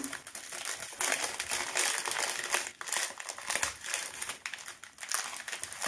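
Sealed paper packet of citric acid crinkling and crackling with many small irregular crackles as gloved hands twist, crumple and pull at it, trying to get it open.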